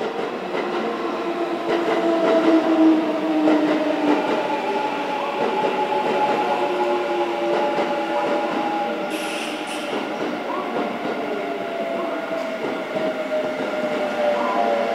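Kintetsu 9820 series electric commuter train running past over the rails, with a steady rumble and several whining tones, one of them sliding slowly down near the end. A short hiss comes about nine seconds in.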